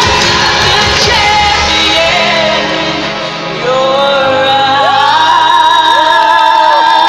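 Live pop song in an arena: a solo singer over a loud backing track. The bass drops out and the music thins briefly about three seconds in, then the full track returns under long held sung notes.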